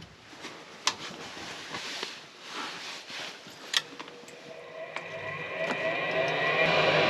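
Two sharp clicks of wire connectors being handled on a gas furnace control board, then a machine starting up with a steady whir that grows louder over the last couple of seconds.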